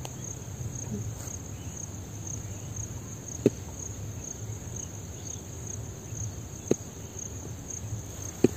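Crickets chirping in a steady, high-pitched pulsing trill. Three sharp clicks stand out above it, about three and a half, six and a half and eight and a half seconds in.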